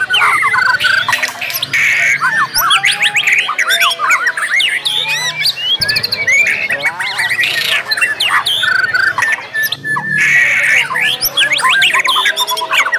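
Several white-rumped shamas (murai batu) singing over one another: a dense, continuous mix of rapid whistles, quick up-and-down sweeps, chirps and harsh notes, including imitations of other birds.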